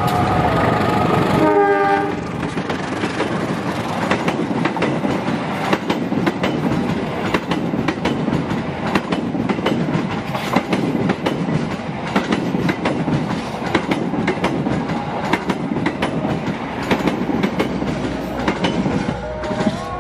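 A train horn sounds and cuts off about two seconds in. Then a train passes close by, its wheels clattering over the rail joints in a steady stream of clicks.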